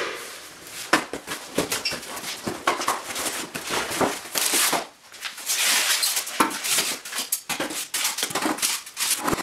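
A cardboard box being opened and handled: flaps bending and scraping, cardboard rustling and foam packing blocks rubbing as a new aluminium radiator is lifted out. The sound comes as irregular rustles, scrapes and knocks, with a longer scrape about four seconds in.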